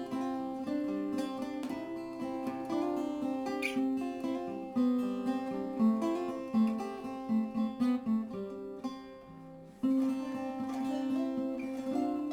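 Acoustic guitar playing, plucked notes and strummed chords, fading briefly near the end before a new chord rings out.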